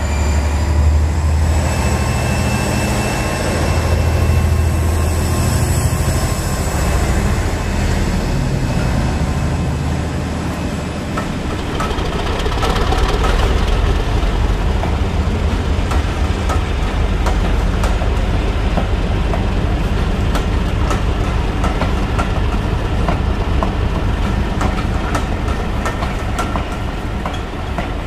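Diesel freight train running past: a steady low engine hum at first, then from about eleven seconds in the rolling of the wagons with rapid clicking of wheels over rail joints.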